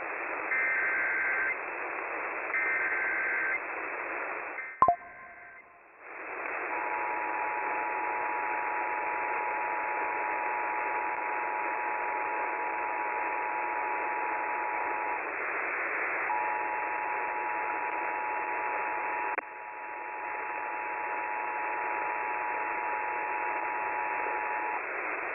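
Emergency Alert System activation over AM radio with static hiss. It opens with two short screeching digital header bursts and a sharp click, then the steady two-tone EAS attention signal sounds for most of the rest, breaking off for about a second midway.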